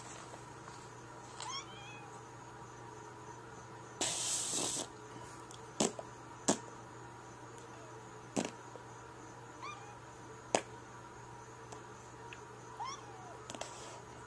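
A cat giving a few short, high meows spread over several seconds. Between them come a brief burst of hissing noise and several sharp clicks.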